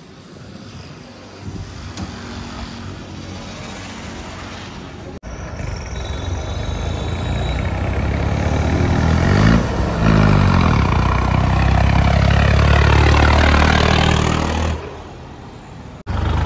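Tractor diesel engine running, growing louder in the middle and steady at its loudest for the last few seconds, with abrupt cuts.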